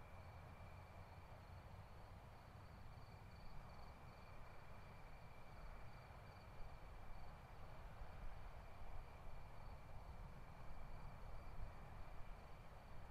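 Faint room tone: a steady low rumble and hiss with a thin, steady high-pitched whine.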